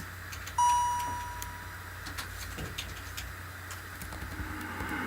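A single clear high tone that starts sharply and fades away over about a second and a half, over a steady low hum and hiss with faint scattered clicks.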